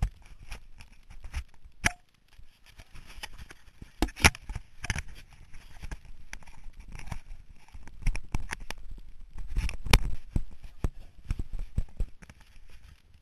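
Handling noise on a GoPro HERO camera being turned around and remounted: fingers rubbing, scraping and knocking on its housing in irregular clicks, with a few louder knocks about four and ten seconds in.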